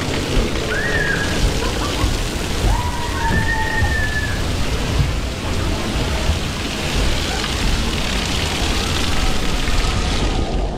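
Steady rushing and splashing water from water park slides and pools, with a few brief high-pitched calls or shouts in the first few seconds.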